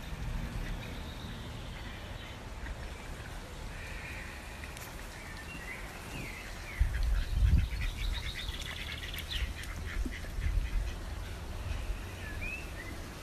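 Domestic ducks calling in short high calls, with a quick run of calls about eight seconds in. Under them is a low rumble that swells loudest about seven seconds in.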